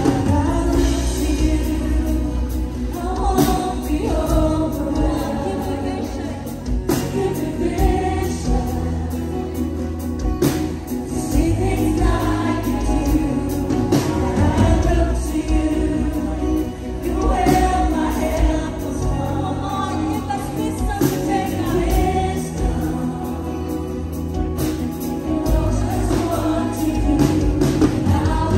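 A live worship band plays a slow praise song. Several singers sing together over keyboards, acoustic and electric guitars and drums.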